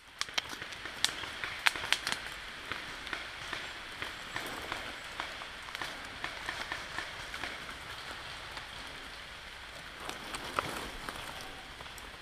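Woodland ambience: a steady rustling hiss with scattered small ticks and crackles, a little busier about a second or two in and again around ten seconds in.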